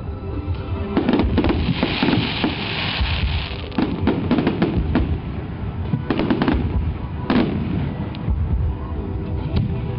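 Aerial fireworks shells bursting in quick succession: a string of sharp bangs over a constant low rumble, with a dense crackling of glittering stars about two seconds in.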